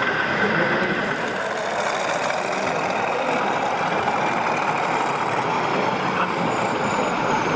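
Model diesel locomotive running slowly on an OO gauge layout, with a steady diesel engine sound of the kind a DCC sound decoder plays, over the general noise of an exhibition hall.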